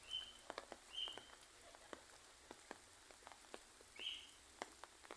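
Light rain, with scattered drops ticking faintly. A bird gives three short chirps, the last near the end.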